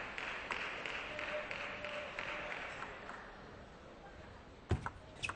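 Arena crowd applauding between table tennis points, the clapping dying away over about three seconds. Near the end come two sharp knocks, the first the louder.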